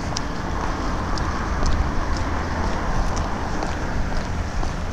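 Steady rush of road traffic with wind buffeting the microphone, and faint footsteps on a concrete sidewalk ticking about twice a second.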